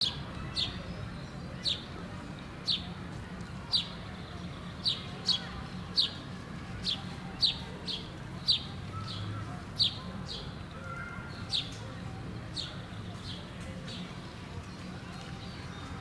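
A short, sharp high call repeated about once or twice a second, each note falling slightly in pitch, growing fainter toward the end, over a steady low hum.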